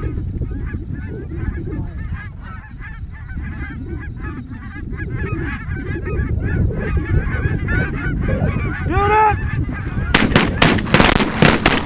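Large flock of snow geese calling as it circles over a decoy spread: many overlapping high-pitched calls over a low rumble. About two seconds before the end a rapid volley of shotgun blasts from several guns breaks out.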